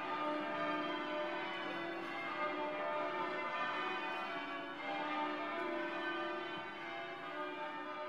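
Kinetic sound sculpture giving a dense, steady wash of ringing, bell-like metallic tones, many pitches sounding together without a break.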